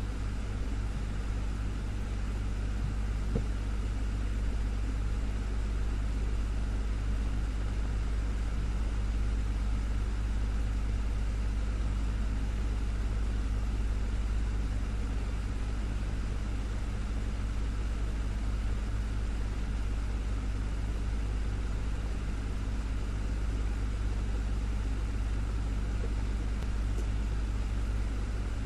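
Desktop fan running steadily: a constant low motor hum under an even rush of air from the blades, with no change in speed.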